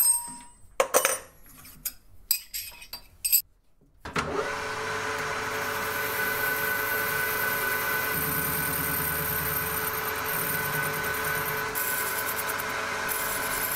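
A few knocks and clicks as the cast iron blank is set in the lathe chuck, then from about four seconds in the metal lathe runs steadily with a whine while the tool turns the cast iron liner blank.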